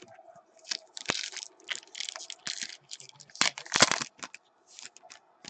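Crinkling and tearing of a trading card pack wrapper as the pack is opened and the cards handled: a quick run of irregular rustles and crackles, loudest near the end.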